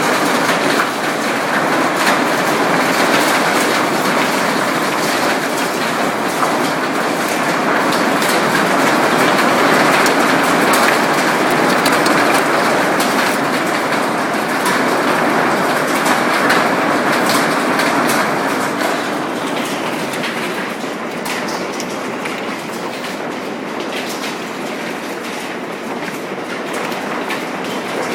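Hailstones pelting down in a dense, steady clatter, with many separate sharp hits. It eases somewhat about two-thirds of the way through.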